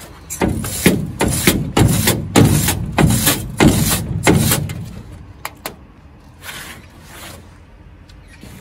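Repeated hammer blows on the steel sheet-metal box, about a dozen strikes in quick succession at roughly three a second, each ringing briefly, then a few fainter knocks near the end.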